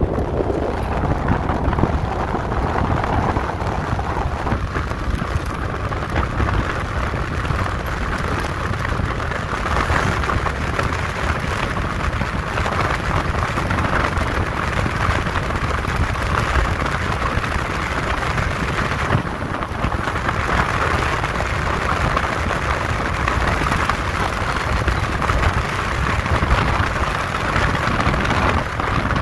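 Steady wind rush over the microphone and road noise from an electric motorcycle being ridden at speed in its high power mode.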